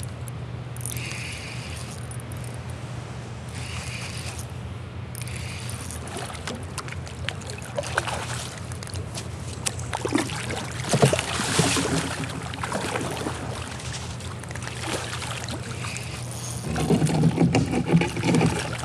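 Hooked smallmouth bass splashing and thrashing at the surface beside a kayak, in bursts about ten seconds in and again, loudest, near the end, over a steady low hum.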